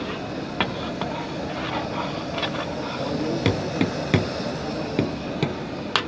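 Chopped liver frying and sizzling on a large flat tawa griddle, with a metal spatula tapping and scraping against the hot metal in irregular sharp clicks, one or two a second. A couple of heavier knocks come around the middle.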